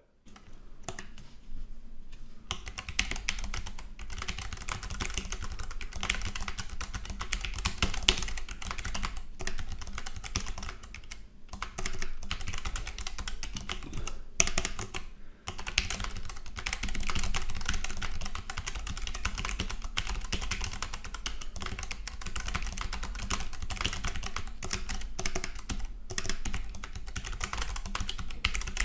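Steady fast typing on a Keychron K3 low-profile wireless mechanical keyboard with Keychron optical brown switches: a dense run of fairly soft key clicks, with a couple of brief pauses.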